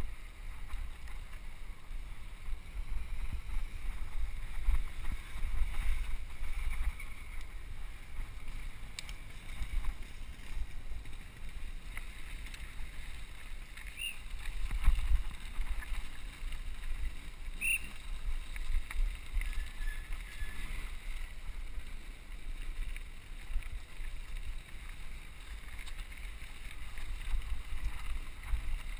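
Wind buffeting the microphone of a helmet camera on a mountain biker riding fast over a gravel singletrack, an uneven low rumble mixed with tyre noise. Two brief high squeaks come about halfway through and again a few seconds later.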